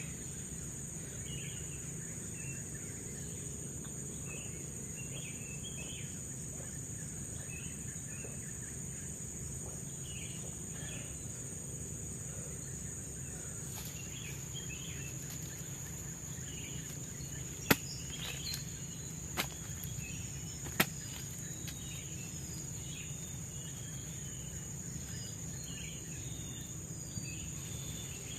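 Tropical forest ambience: a steady high-pitched insect drone with scattered short chirps, and three sharp clicks or knocks a little over halfway through.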